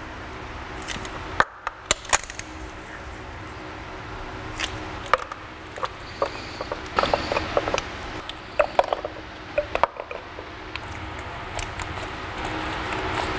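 Hand tools and metal bolts being handled: irregular sharp metallic clicks and taps, with clusters about six to ten seconds in.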